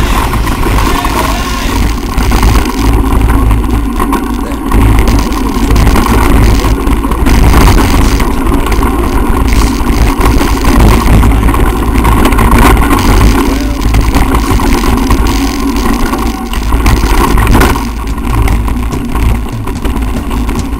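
Wind buffeting the microphone of a camera on a bicycle riding fast down a bumpy dirt trail, with the rattle of the bike over the ground.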